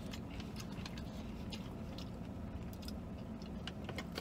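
Small plastic water bottle being twisted open and handled, giving scattered soft clicks and crinkles, with a sharper click near the end, over a steady low hum in a vehicle cabin.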